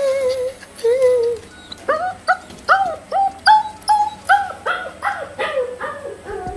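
German Shepherd puppy in a tantrum: two drawn-out whines, then a run of about a dozen short, high yaps, roughly two or three a second.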